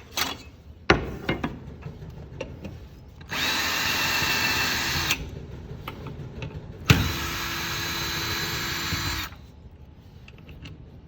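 Cordless drill-driver backing out screws: two runs of about two seconds each with a steady motor whine, the second starting with a sharp knock. Clicks and knocks of the screws and parts being handled come before and between the runs.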